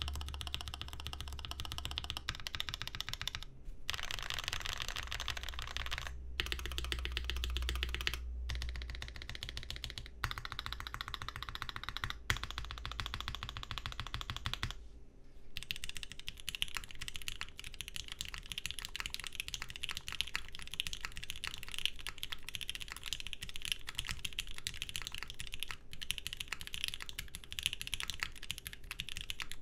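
Fast typing on the atxkb 512 custom mechanical keyboard: NK Cream linear switches lubed with 205g0, a brass plate and GMK keycaps, keys clacking in quick runs with short pauses. About fifteen seconds in, after a brief pause, the typing moves to the atxkb Moontower: H1 switches lubed with 205g0 and filmed, an aluminium plate and ePBT keycaps, a steady, higher-pitched clacking.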